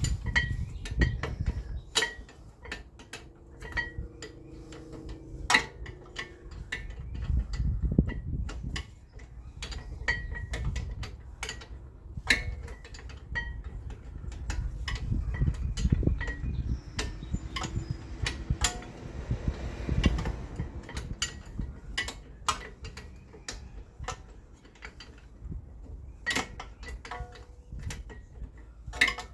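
Ratchet wrench clicking in irregular runs with metal tool clinks while the brake caliper bracket bolts are tightened.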